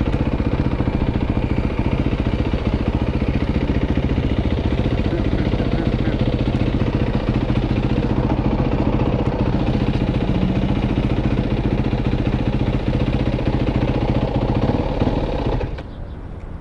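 Yamaha WR450F's single-cylinder four-stroke engine running steadily at low revs, then stopping about a second before the end.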